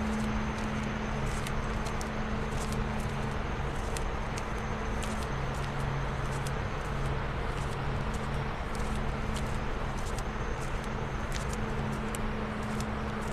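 Coal belt conveyor running: a steady mechanical rumble and hum from the belt and its idler rollers, with scattered light clicks.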